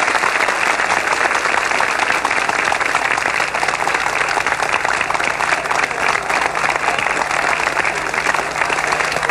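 Large crowd applauding, a dense steady clatter of many hands clapping. A faint low hum joins it about a third of the way in.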